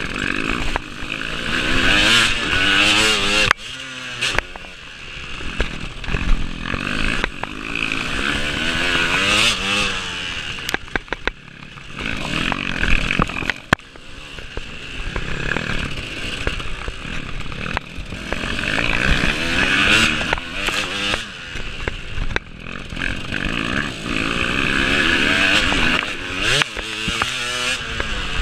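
Off-road racing motorcycle engine revving hard and backing off again and again, its pitch rising and falling with each run through the gears, with a few sharp knocks about halfway through.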